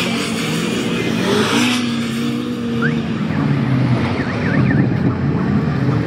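Engines of off-road racing buggies and side-by-side UTVs running hard on a dirt track, their pitch rising and falling with the throttle, with one engine note held steady for about a second partway through.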